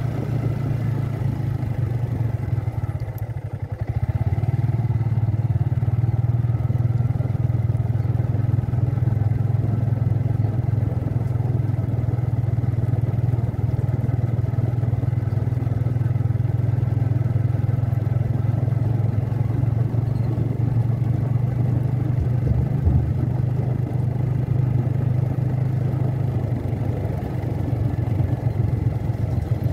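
Motorcycle engine running steadily as it is ridden along. The engine dips briefly about three seconds in, then runs a little louder for the rest of the time.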